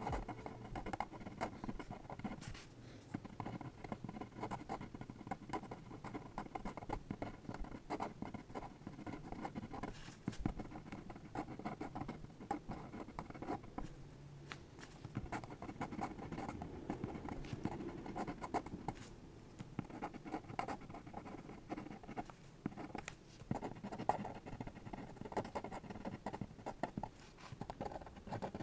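Sakura Pigma Micron fineliner nib scratching and tapping on paper in many short, irregular strokes while tiny figures are sketched.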